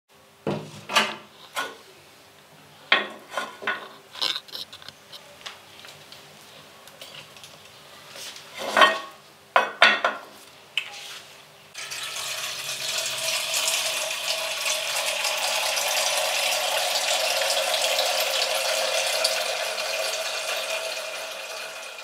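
Sharp clinks and knocks of crockery and cutlery at irregular intervals. About halfway through, milk starts pouring in a steady stream and keeps going, easing off slightly near the end.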